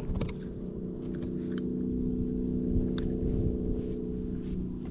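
A boat motor humming steadily at a low pitch, with wind rumbling on the microphone and a few light clicks.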